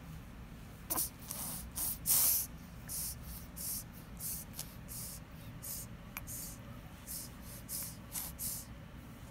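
A three-week-old baby breathing noisily through a stuffed-up nose: quick hissing, snuffly breaths, about two a second, a sign of nasal congestion.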